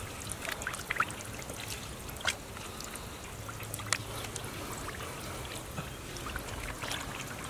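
Hands working through shallow muddy water, with small irregular splashes and trickling as the water is stirred and scooped.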